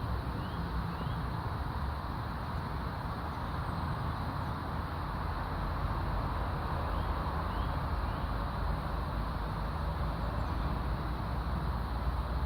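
Steady outdoor background hiss with a low rumble, and a few faint short rising chirps: two near the start and three about seven to eight seconds in.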